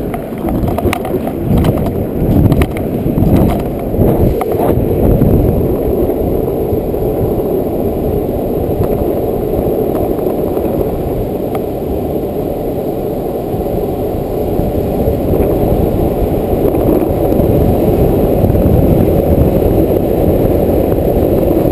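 Wind noise buffeting the microphone of a camera travelling fast downhill, mixed with longboard wheels rolling on asphalt. A few knocks in the first few seconds.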